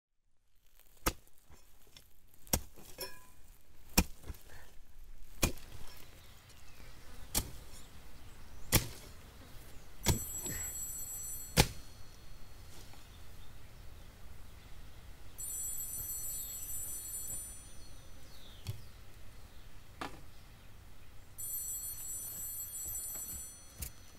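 A hand tool chopping into garden ground in sharp strikes, about one every second and a half, stopping about twelve seconds in. A telephone then rings in three high-pitched bursts of about two seconds each.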